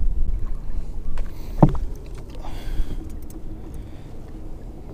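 Low rumble of wind and water around a small fishing boat, easing off over the first few seconds, with one sharp knock about a second and a half in as a crappie is being unhooked by hand.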